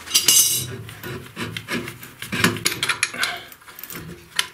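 Wrench working loose the nut of an old compression fitting on a heating pipe: a run of short, irregular scraping and rasping strokes.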